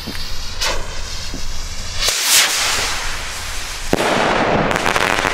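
Weco Fire Fantasy firework rockets going off: a short pop under a second in and a louder burst about two seconds in. About four seconds in comes a sharp bang, then over a second of hissing crackle as the glitter effect burns.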